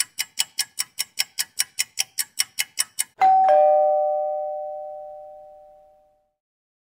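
Clock-like ticking sound effect, quick and even at about five ticks a second for some three seconds, then a two-note ding-dong chime, high then lower, ringing and fading away over about three seconds, like a kitchen timer going off.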